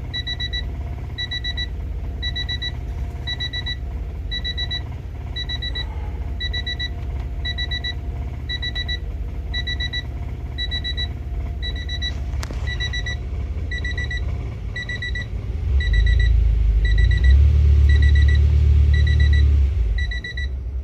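A car's engine and road rumble heard from inside the car, growing much louder about 16 seconds in, under a high electronic warning beep that sounds in quick groups of four pips about once a second.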